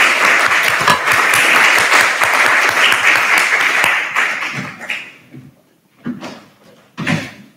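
Audience applauding, the clapping dying away about four seconds in; two short, separate sounds follow near the end.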